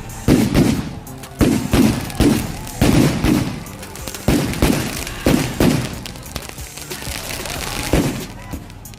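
A rapid, irregular volley of firework and firecracker bangs, about two a second, each with a short echoing tail. The bangs thin out towards the end, with one last loud bang.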